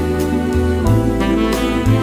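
Background music: a sustained melody that PANN takes for saxophone, over a bass line and a regular beat.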